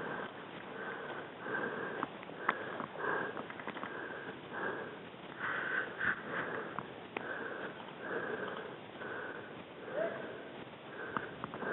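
Rapid, heavy breathing of the camera wearer close to the microphone, about one and a half breaths a second, with a few sharp clicks in between.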